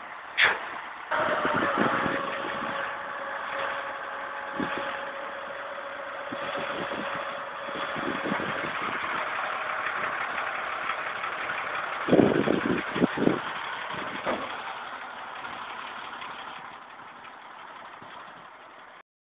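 Flatbed tow truck's engine running steadily, with a steady whine over the first several seconds. About twelve seconds in, a cluster of loud knocks comes as a motorcycle is loaded onto the bed.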